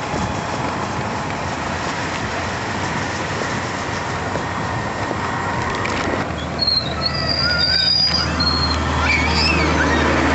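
Wind and road noise from a moving motorbike, then the low engine drone of an oncoming truck, growing louder as it comes close and passes. A few high whistling chirps sound over it in the second half.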